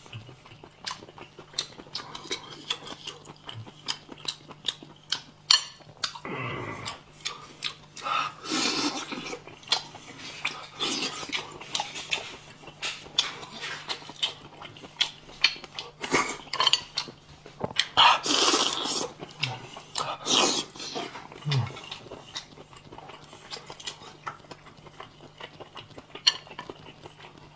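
Close-up eating of spicy stir-fried snails: frequent sharp clicks of shells and chopsticks, with several longer sucking slurps as the snails are sucked out, the loudest about two thirds of the way through.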